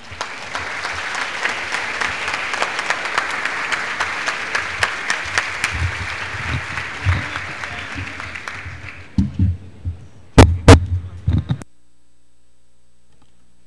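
Audience applauding, the clapping fading out about nine seconds in. A few loud thumps follow, then the sound drops to a low steady hum.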